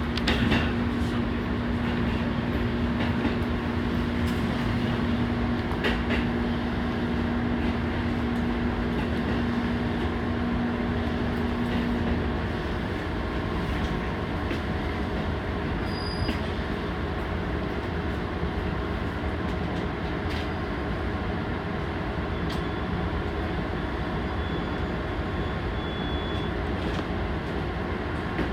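Fujikyu Railway local train running on the line: a steady rumble of wheels and running gear, with a steady hum that drops out about twelve seconds in. A few sharp knocks come through the rumble.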